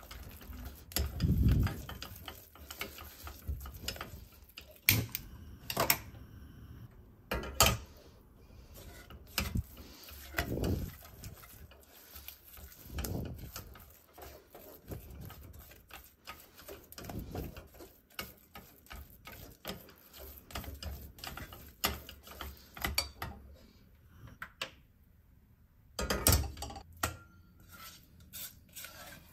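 Silicone spatula stirring and pressing choux pastry dough against a stainless steel saucepan, cooking the flour paste: irregular soft scrapes, taps and knocks on the pan. Near the end there is a louder clatter as the dough is scraped out into a stainless steel bowl.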